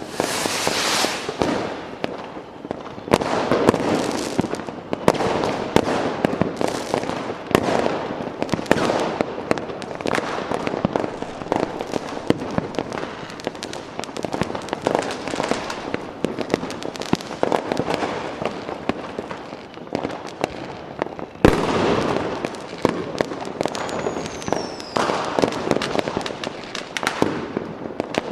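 Fireworks display: a steady stream of overlapping bangs and crackling. About three quarters of the way through comes one sharp, louder bang, followed shortly by a brief falling whistle.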